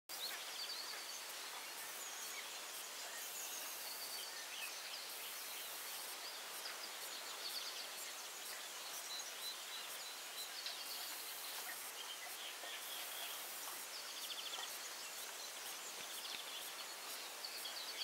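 Countryside ambience: a steady hiss with scattered short chirps of small birds and high insect trills that come and go every second or two.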